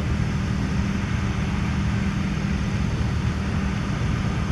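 A steady low mechanical hum with an even drone that does not change.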